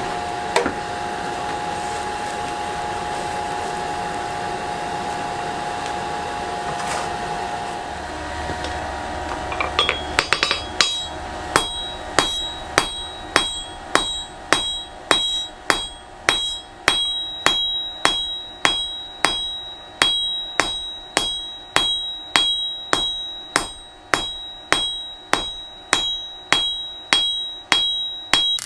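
Blacksmith's hammer striking hot steel on an anvil, forging a W1 steel dagger blank: even blows about one and a half a second, each with a high metallic ring. They start about ten seconds in, after a steady rushing noise with a hum.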